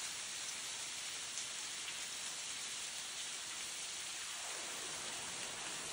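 Thin waterfall falling down a rock face, a steady splashing hiss.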